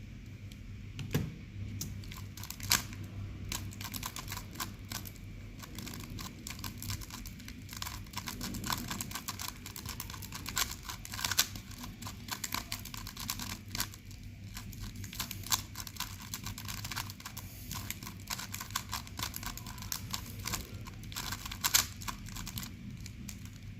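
3x3 Rubik's cube turned rapidly through a speed solve: a dense, irregular run of plastic clicks and clacks as the layers snap round. A steady low hum runs underneath.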